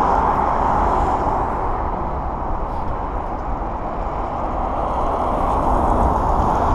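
Steady city traffic noise from passing cars, mixed with a low wind rumble on the microphone, as an electric scooter rolls slowly over the asphalt.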